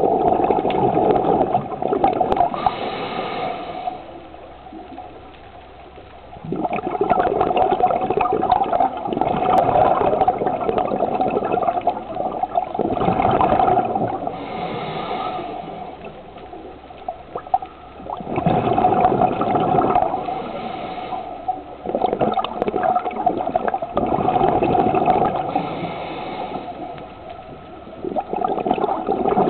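Underwater bubbling and gurgling, consistent with a scuba diver's exhaled breath through a regulator, swelling and fading in a slow cycle about every six seconds.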